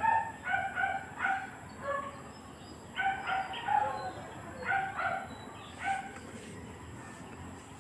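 Short pitched bird calls in quick clusters of two or three, repeating several times.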